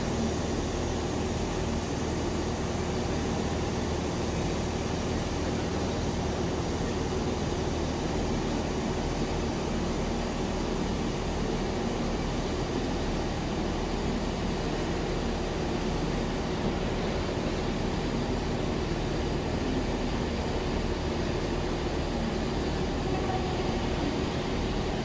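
Class 66 diesel freight locomotive running steadily, a low even engine hum with rumble that holds the same pitch and level throughout.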